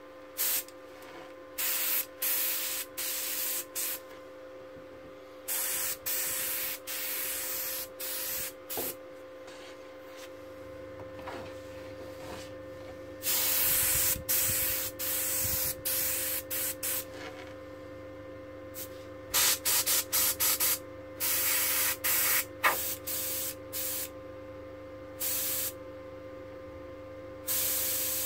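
SP180KTG gravity-feed airbrush blowing compressed air with no paint loaded, in a long series of short hissing bursts that start and stop sharply as the trigger is pressed and released. A steady hum runs underneath.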